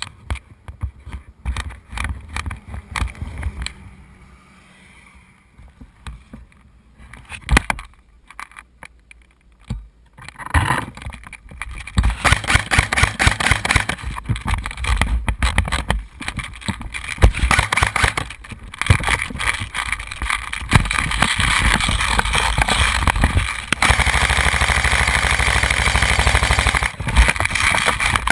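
Vehicle in motion. There are scattered clicks and knocks for about the first ten seconds, then a loud, steady rush of driving noise with many sharp clicks mixed through it.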